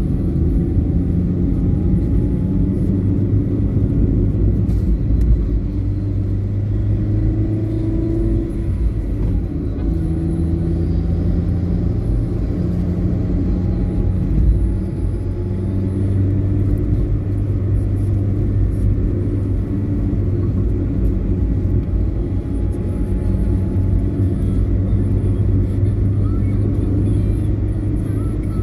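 Car driving on a paved road, heard from inside the cabin: a steady low engine and road rumble whose engine hum shifts in pitch a couple of times about eight to ten seconds in.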